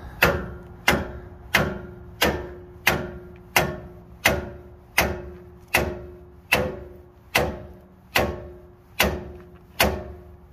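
A hammer pounding on the steel of a truck's front leaf-spring suspension: a steady run of about fifteen hard blows, roughly three every two seconds, each with a short metallic ring.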